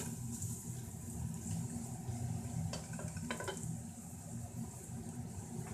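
Sliced onions sizzling in hot cooking oil in a stainless steel pot, fried to a deep golden brown, while a wooden spoon stirs them. Two short clatters of the spoon against the pot a little past halfway.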